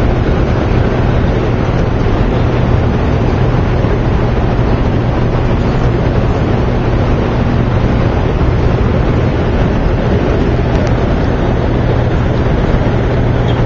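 Steady low hum over a constant rushing roar from the hydroelectric generators running in the Hoover Dam power plant's generator hall.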